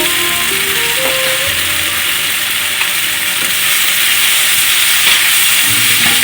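Onion, tomato and spice masala frying in hot oil in a pan, with a steady sizzling hiss as it is stirred.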